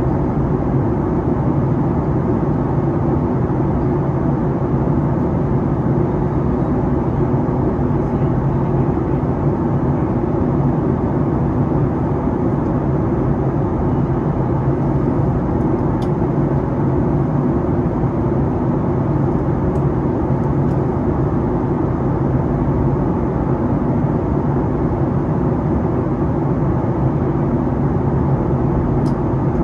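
Steady cabin noise inside a Boeing 737-8 MAX in flight: the drone of airflow and the CFM LEAP-1B engines with a low, even hum, unchanging throughout.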